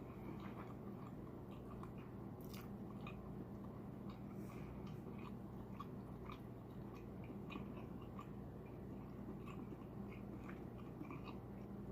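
A person chewing seafood close to the microphone: soft, irregular wet mouth clicks and smacking.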